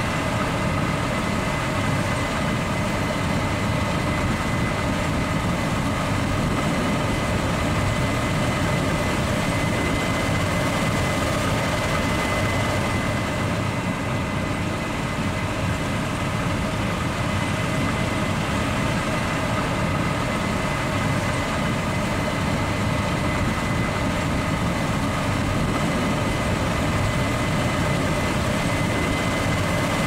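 Combine harvester running steadily at working speed: a low engine drone with a thin, steady high whine over it, without change.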